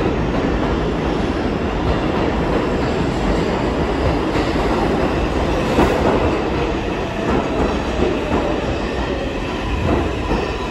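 An R142 subway train pulling into the station, a steady loud rumble of steel wheels on the rails as the cars roll past the platform.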